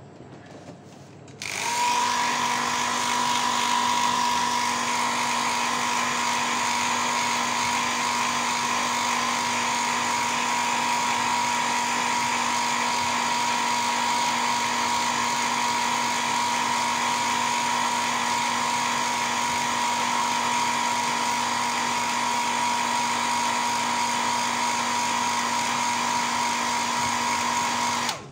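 Handheld hair dryer switched on about a second and a half in, blowing steadily with a constant motor whine over a rush of air, drying airbrushed paint on a fishing lure. It cuts off just before the end.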